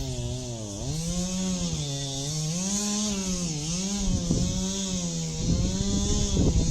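Two-stroke chainsaw running at cutting speed, its pitch repeatedly sagging and recovering as it loads up in the wood. A few sharp knocks come in near the end.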